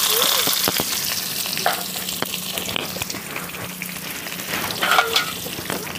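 Sliced onions dropped into hot oil in an aluminium pan, sizzling loudly at first and easing gradually into steady frying with scattered crackles.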